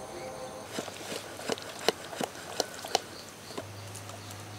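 Steel ladle and steel pot of dosa batter being handled: a run of sharp clicks and knocks, loudest about two and three seconds in. A low steady hum comes in near the end.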